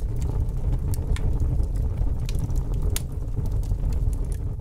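Wood fire burning: a steady low rumble of flames with scattered sharp crackles and pops, the strongest pop about three seconds in.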